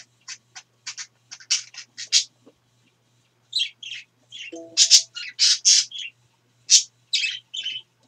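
Pet parakeets (budgerigars) chirping and chattering in quick runs of short, high calls, sparser at first and then a busier run in the second half.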